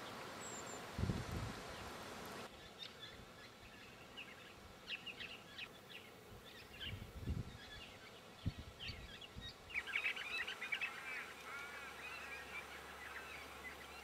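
Faint calls of several wild birds: short, high chirping notes scattered through, thickening into a busier run of rapid notes about ten seconds in. A few low thumps, the loudest about a second in.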